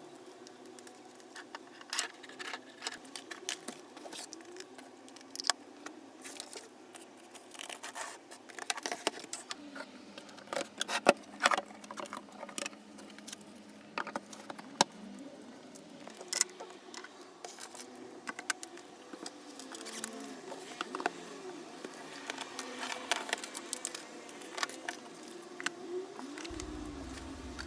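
Scattered light clicks and taps at uneven intervals, like small objects being handled, with a busier cluster about ten seconds in, over a faint low hum.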